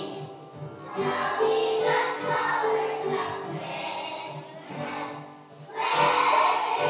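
Kindergarten children's choir singing a song in phrases with short breaks between them, over a steady low beat.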